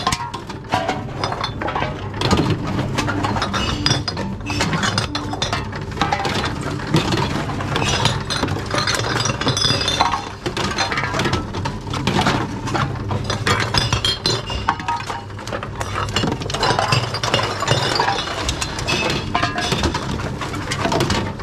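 Empty glass bottles clinking and clattering against each other, many irregular knocks in a row, as they are handled and fed into a reverse vending machine, with a steady low machine hum underneath.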